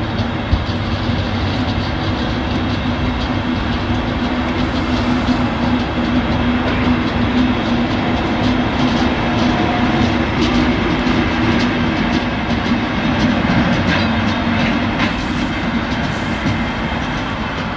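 Diesel shunting locomotive running along the track, a steady engine drone with occasional clicks from its wheels over the rail.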